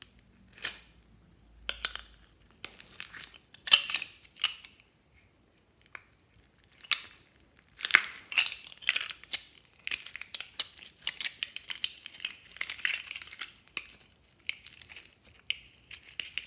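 Thin plastic slime containers crinkling and clicking as they are squeezed and pried open. Foam-bead slime (floam) is pulled out of them with a sticky crackling. The sounds come in short scattered bursts at first, then turn into nearly continuous crackling about halfway through.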